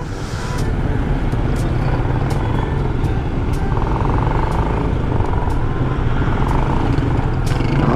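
Suzuki Gixxer FI motorcycle being ridden on the road: a steady mix of engine running and wind rushing over the microphone. The bike is on its stock exhaust.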